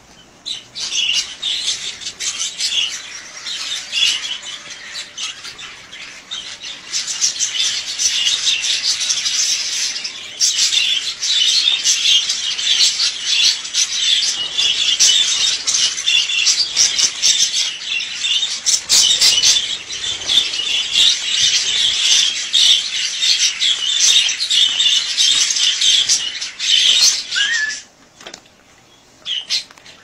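Budgerigars chattering and chirping in a dense, continuous stream of short, high calls that stops abruptly about two seconds before the end.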